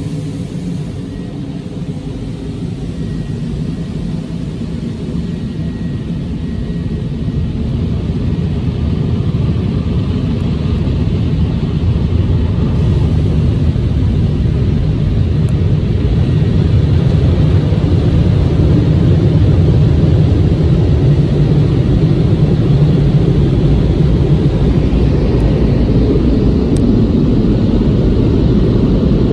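Car wash tunnel's air dryer blowers blasting the car, heard from inside the cabin as a loud, steady rushing roar. It grows louder through the first half as the car moves under the blowers, then holds.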